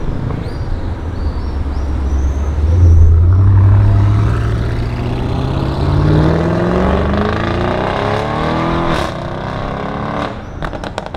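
Audi RS6 Avant (C7) with a Milltek exhaust, its twin-turbo V8 accelerating hard away: a deep rumble, then the engine note rising steadily in pitch for several seconds until it breaks off at a gear change. A few sharp exhaust cracks follow near the end.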